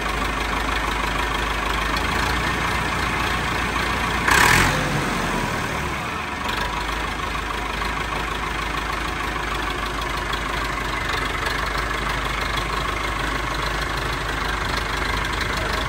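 ATS 290 tractor's diesel engine running steadily, with a short, loud burst of noise about four seconds in.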